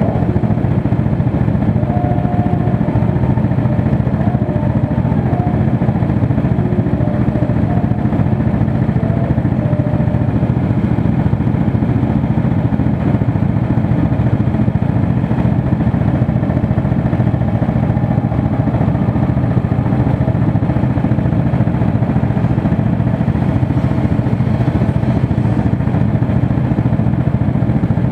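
Go-kart engine idling steadily, a constant low drone with no revving.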